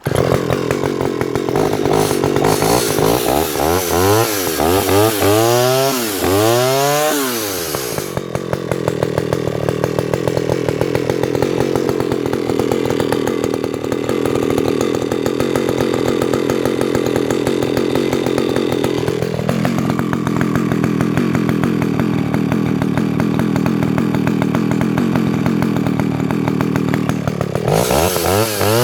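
Vintage Alpina 070S 70cc two-stroke chainsaw running. For the first eight seconds it revs up and down several times, then it holds a steadier, lower speed. About twenty seconds in it steps up to a higher steady speed, and near the end it revs up and down again.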